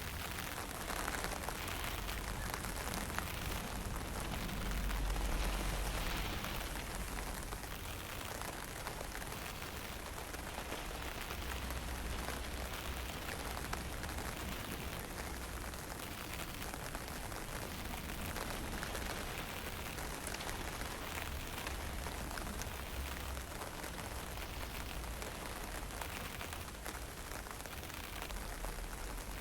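Steady hiss of light rain and fine drizzle, with wind gusting on the microphone in low rumbles, strongest about five seconds in.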